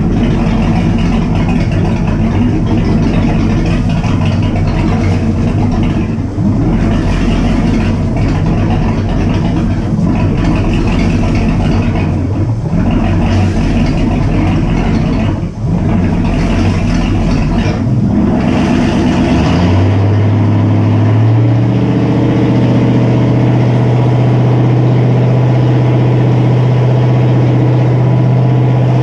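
1974 Century Resorter's 302 Ford V8 inboard running loud with no mufflers: idling for about twenty seconds, then brought up to a steady higher speed, around 2000 RPM, and held there.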